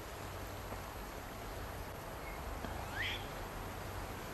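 Faint outdoor ambience, a steady hiss, broken about three seconds in by one short, high call rising in pitch.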